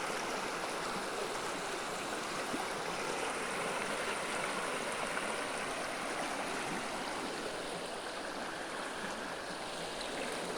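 Shallow stream of clear water rushing steadily over rocks, an even, unbroken sound of running water.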